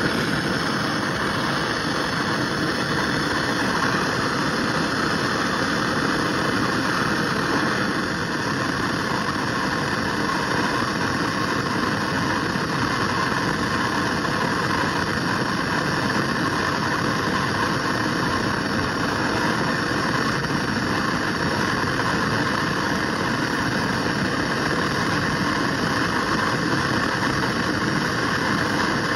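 Handheld gas torch burning steadily, a continuous even rushing hiss from its flame heating a steel screwdriver shaft.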